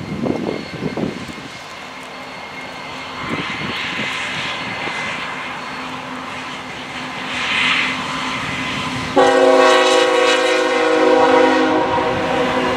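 BNSF freight train's diesel locomotives approaching with a steady engine drone. About nine seconds in, the lead locomotive's multi-chime horn sounds a long blast that holds to the end.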